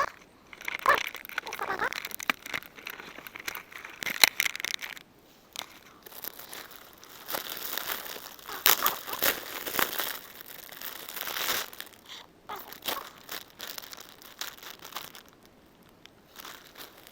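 Crinkling and rustling handling noise in irregular bursts, with sharp clicks, from materials being handled while a ridgeline shelter is set up.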